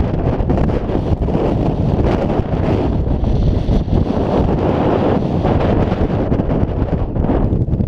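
Strong wind blowing across the camera's microphone: a loud, steady, rumbling rush of noise.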